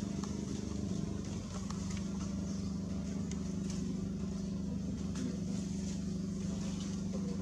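A motor engine running steadily, a constant low hum that does not change in pitch, with a few faint clicks.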